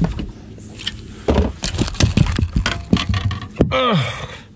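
A rapid run of knocks and clicks as a fishing rod and reel are handled and set down on a bass boat's carpeted deck, followed near the end by a short falling groan from a man getting up.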